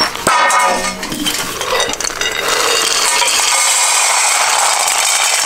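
Dry puppy food poured into a feed bowl, with clinking of hard pellets on the dish at first. From about two and a half seconds in it becomes a steady rattling pour.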